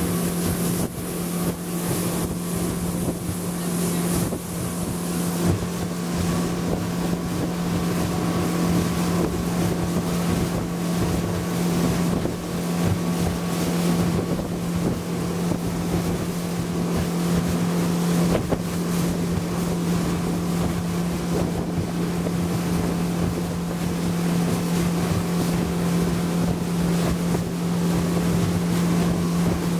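Speedboat engine running steadily at speed, a constant low drone, with wind buffeting the microphone and the rush of water around the boat.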